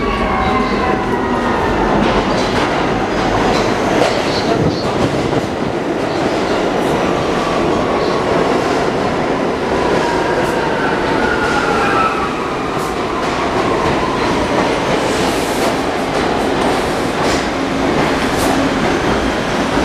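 New York City subway train on the 6 line running alongside the platform: a loud, steady rumble and wheel clatter, with whines that fall in pitch near the start and again around the middle as the train slows.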